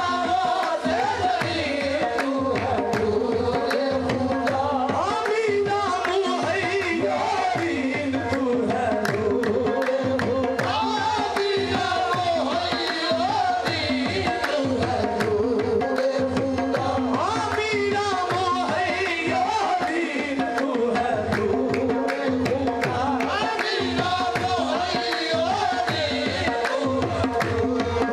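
Qawwali music: hand drums keep a fast, driving beat under a steady held harmonium drone, with a singer's voice wavering over the top.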